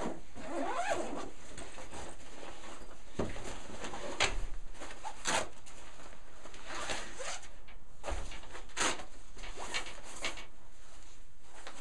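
Ruger 10/22 Takedown's padded nylon carrying case being unzipped and opened: a series of short zipper pulls, fabric swishes and scrapes as the case is handled.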